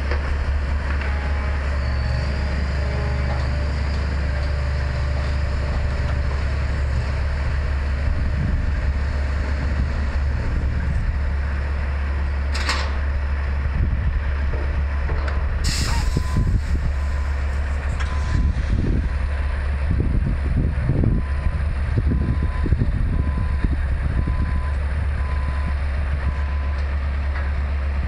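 Heavy diesel truck engines running with a steady low drone, with two sharp hisses of released air about halfway through. A faint beeping alarm repeats in the later part, while the engine sound swells in low rumbles.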